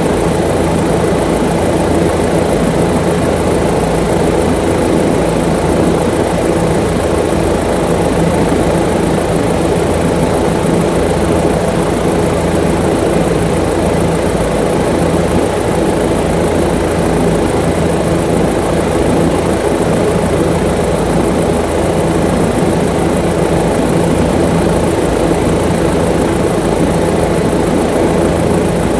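Aircraft engine running steadily in flight, heard from inside the cabin: an even, unchanging hum.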